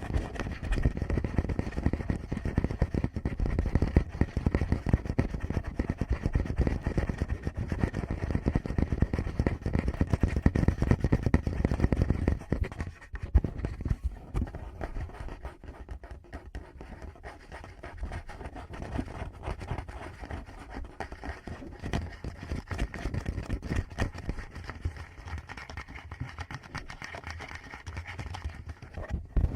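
Fingertips rubbing, scratching and tapping directly on a Tascam microphone, giving a dense, fast scratching with deep muffled thumps. It is louder for the first dozen seconds, then turns softer and lighter.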